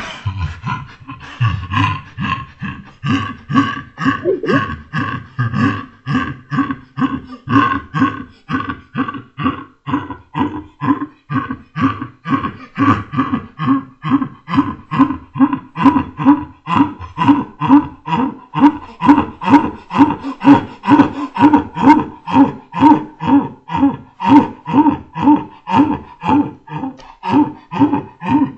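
A man's laughter played back slowed down: a long run of even, drawn-out "ha" pulses, about three a second.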